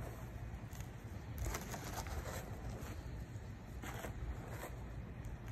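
Hands digging through dry soil, with a few short rustling scrapes over a low steady rumble.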